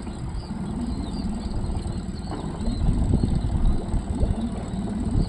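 Yamaha 20 hp outboard motor idling as a small boat comes in slowly.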